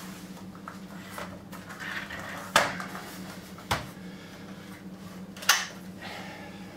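Handling of a sheet-metal UPS battery module casing: hands rub over the metal, then three sharp knocks come a second or two apart as the casing is set down and its top cover is worked loose.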